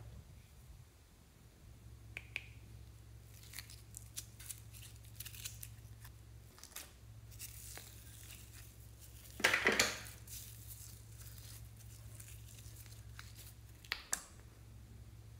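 Slime being scraped out of small plastic cups and handled in a glass dish: scattered soft clicks and sticky crackles, with a louder run of quick crackles a little after halfway and two sharp ticks near the end, over a faint low hum.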